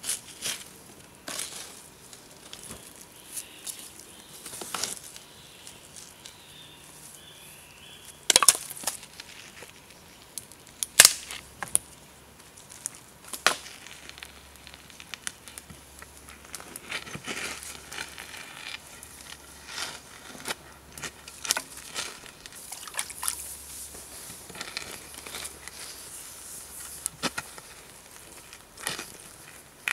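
Charcoal fire in a short clay furnace crackling, with many small sharp pops and clicks, and a few louder knocks from a wooden stick poking the charcoal, the loudest about a third of the way in.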